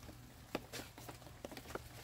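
Irregular light taps and knocks, several short clicks spread across two seconds, some with a brief ring.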